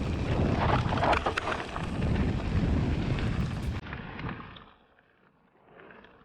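Wind buffeting the action camera's microphone as a steady rumbling roar. It cuts off suddenly about four seconds in and fades to silence.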